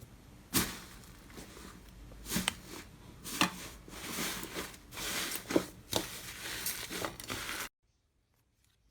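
Slime being squeezed and worked by hand: a crackly, crinkling noise with several sharp pops, cutting off abruptly near the end.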